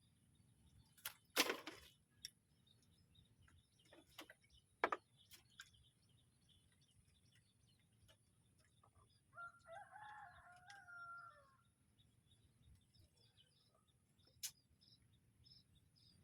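Mostly quiet, with a few sharp clicks and knocks, then one drawn-out crowing call lasting about two seconds, about nine seconds in.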